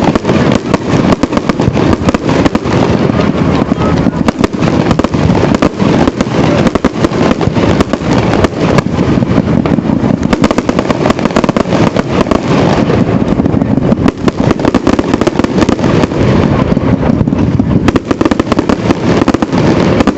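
Fireworks display: a loud, continuous barrage of rapid bangs and crackles with no let-up.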